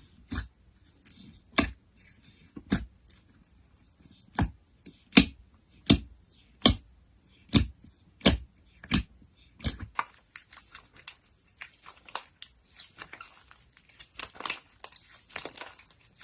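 Slime being squeezed and stretched by hand, giving a series of sharp pops about one every half second to second for the first ten seconds. After that come quieter, rapid crackles.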